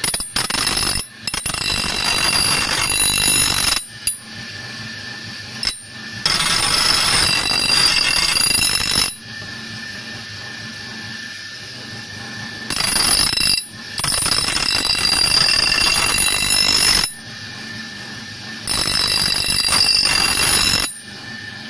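Bench grinder running while a rusty axe blade is pressed against the grinding wheel to sharpen its edge: about six passes of one to three seconds of loud grinding with a high whine, with the grinder's steady running hum in between.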